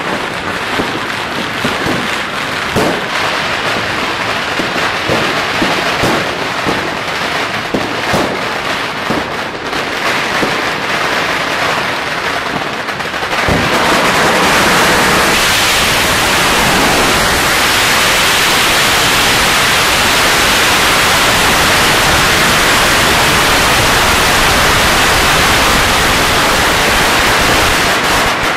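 Fireworks and firecrackers going off in a run of separate sharp bangs and crackles. About halfway through, a long string of firecrackers goes off close by, its crackle merging into one loud, unbroken rattle.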